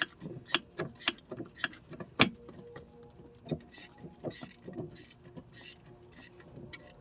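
Gas pedal of a 1985 Chevrolet Suburban being pumped over and over: irregular clicks and knocks from the pedal and linkage, the loudest about two seconds in. The pumping works the Quadrajet carburetor's weak accelerator pump to prime the hard-starting engine.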